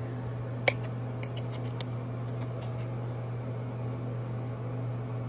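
Steady low mechanical hum, like a fan running, with one sharp click less than a second in and a few faint ticks after it, as a denture adhesive tube and the winding key on its bottom are handled.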